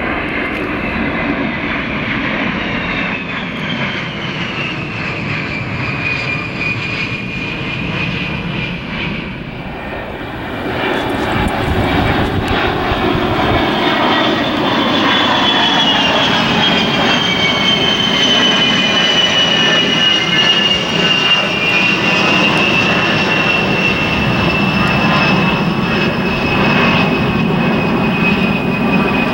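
A-10 Thunderbolt II jets passing overhead: the rush of their TF34 turbofan engines with a high whine that slides down in pitch, twice. The sound grows louder about ten seconds in.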